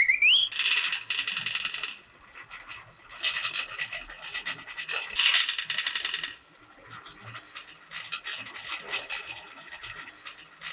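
Small marbles rolling and clacking down a wooden wavy-channel marble-run track, a dense rattle of clicks. It comes in waves, loudest near the start and again about five seconds in, and thins to scattered clicks near the end.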